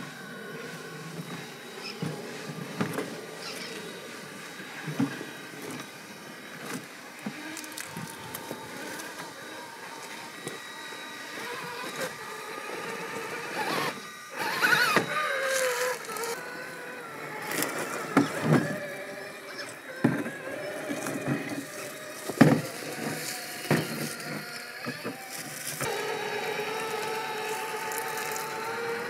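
Axial SCX6 1/6-scale RC rock crawler's electric motor and geared drivetrain whining as it crawls over rock. The pitch rises and falls with the throttle and holds steady near the end. Knocks and clacks from the tyres and chassis striking stone come at irregular times, the loudest about three quarters of the way through.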